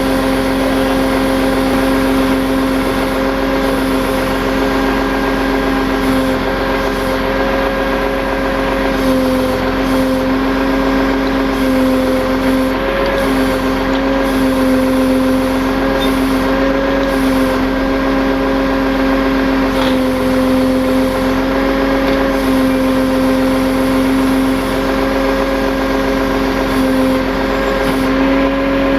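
Tow truck running with its hydraulic winch drive engaged, giving a loud, steady droning whine that wavers only slightly in pitch.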